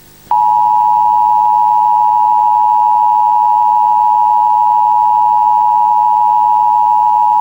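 Emergency Alert System attention signal: a loud, steady two-tone beep (the 853 and 960 Hz pair) that starts a moment in and holds without a break.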